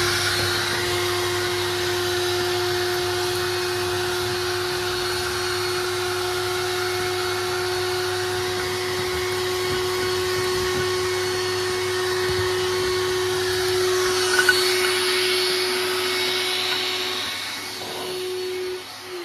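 Vacuum cleaner running steadily with a constant motor whine while soot is cleaned from a masonry bread oven during chimney sweeping. Near the end it is switched off and the motor winds down.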